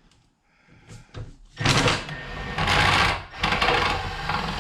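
Cordless impact driver with a Phillips bit running in three short bursts, its rapid hammering rattle driving motor-housing screws, starting about a second and a half in.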